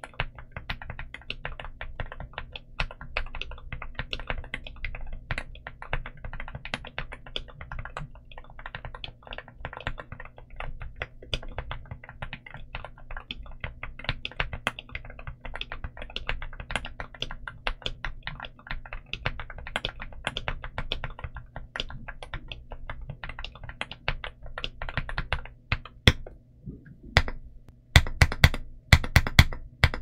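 Rainy75 mechanical keyboard with Akko Rosewood linear switches, a polycarbonate plate and dye-sub PBT Cherry-profile keycaps, typed on quickly in a continuous thocky clatter of keystrokes. About four seconds before the end the fast typing stops, and single keys are then struck one at a time, louder and spaced apart.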